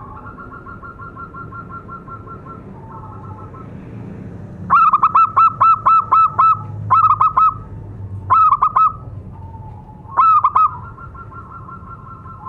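Zebra dove (perkutut) cooing. A faint fast trill of coos comes first, then about five seconds in a loud run of quick staccato coo notes, followed by three shorter clusters of notes. It is the dove's calling song, used to attract other doves.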